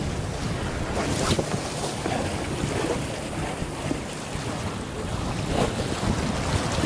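Wind buffeting the microphone over sea waves washing against the concrete tetrapod blocks of a breakwater.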